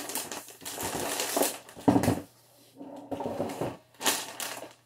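Clear plastic bag crinkling and rustling in irregular bursts as it is pulled off a network switch, with one sharper bump about two seconds in.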